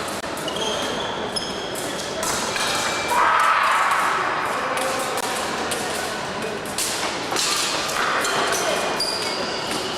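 Sounds of an épée fencing bout: irregular thuds of footwork and short metallic pings of blades meeting, over voices in the hall.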